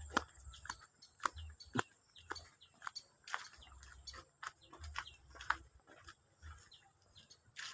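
Quiet outdoor ambience of scattered short bird chirps and sharp clicks over a thin, steady high-pitched tone.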